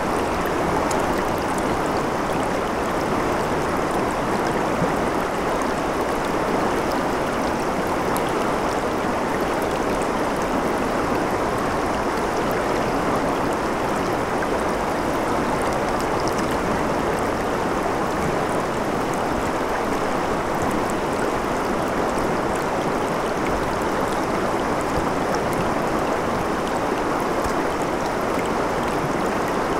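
A shallow, rocky stream flowing over and around stones, a steady rush of water with no breaks.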